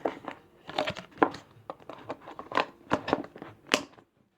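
Slime being squished and pressed into a plastic container: irregular short squelches and pops that stop shortly before the end.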